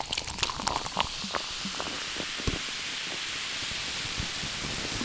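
Cola fizzing in a glass with ice just after being poured: dense crackling pops that thin out over the first couple of seconds, settling into a steady fizzing hiss.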